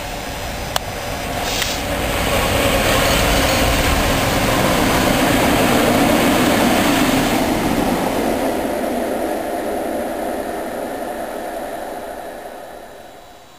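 Light-engine convoy of diesel-electric locomotives, three Class 66s with Class 60 60049 at the rear, running past with engines working; the engine noise builds, is loudest about halfway through, then fades away. A sharp click sounds about a second in.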